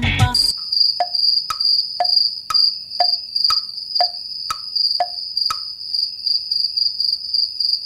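Music cuts off half a second in, then crickets chirp steadily in a fast pulsing trill. Over the first five seconds of the chirping a clock ticks, tick-tock, about twice a second.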